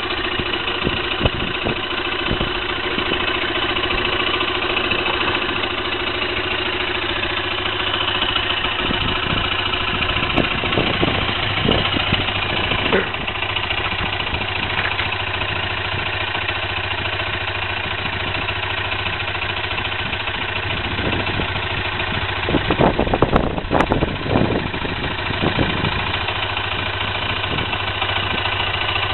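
Kymco 125 motorbike engine idling steadily. A short patch of louder knocks comes about three-quarters of the way through.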